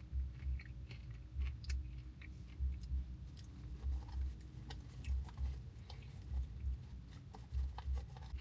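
A person chewing a mouthful of buttered popcorn close to the microphone, a steady rhythm of about two chews a second with faint crunches.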